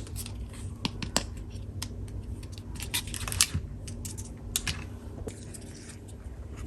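Irregular small clicks, ticks and taps of toy tool-kit pieces being handled and set down, the sharpest about three and a half seconds in.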